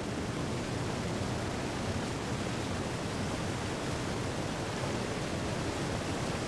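Glacial meltwater stream rushing steadily over boulders.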